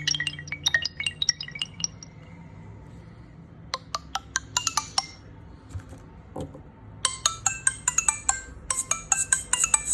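Nokia 301 mobile phone ringtones played one after another: a tune of quick high notes ends about two seconds in, a short phrase follows around four seconds in, and after a soft knock a new fast, repeating tune starts about seven seconds in.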